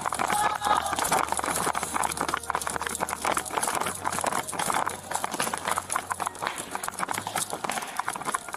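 Fast running footsteps slapping a hard shop floor, heard close up from a body-worn camera whose wearer is running, with quick, irregular knocks throughout.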